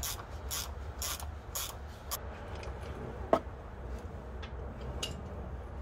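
Engine oil draining from the oil pan of a Ford F-150's 5.4-litre V8 into a plastic drain pan, with a splashing hiss that pulses about twice a second. A sharp click comes about three seconds in.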